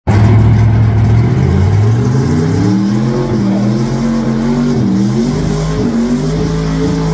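Pulling truck's engine running hard at high revs during a truck pull. Its pitch climbs over the first two or three seconds, rises and dips a few times, then holds fairly steady.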